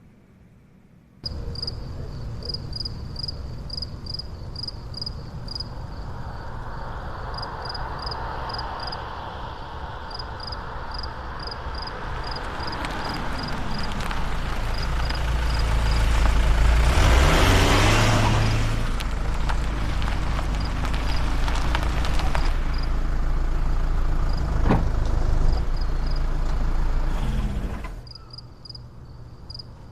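A car driving, a steady engine and road rumble that grows louder to a peak about halfway through, then holds before cutting off suddenly near the end. A regular high-pitched chirping runs over it.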